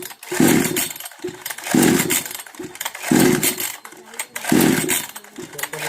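Kisan Kraft 58 cc two-stroke chainsaw being pull-started four times in a row, about one pull every second and a half. Each pull cranks the engine briefly without it catching and running: a starting problem.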